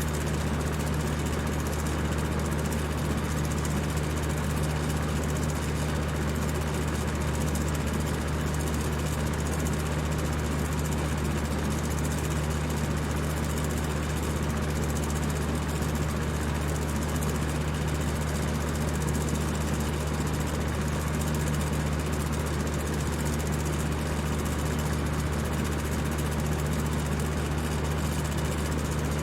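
Electric fan running at high speed: a steady whir of rushing air over a low motor hum, unchanging throughout.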